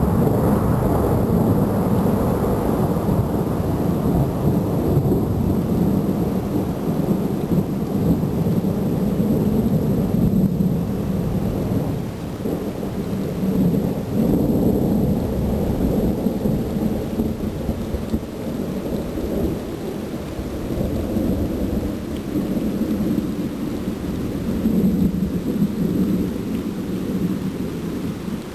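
Thunder rumbling long and low, rolling on continuously and swelling and easing several times.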